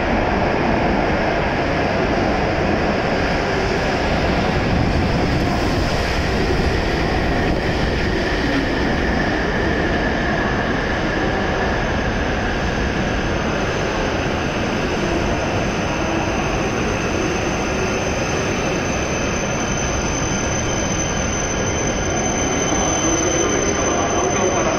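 W7 series Shinkansen train running in along the platform and slowing to a stop: the steady rushing rumble of the cars rolling past, with a faint falling whine partway through. A thin, high, steady tone comes in near the end as the train comes to a halt.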